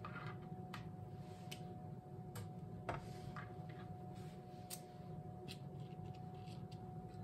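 Light, scattered clicks and taps as slices of hot dog are picked off a plastic cutting board and pressed into batter-filled paper liners in a metal muffin tin, the sharpest tap about three seconds in. A steady low hum runs underneath.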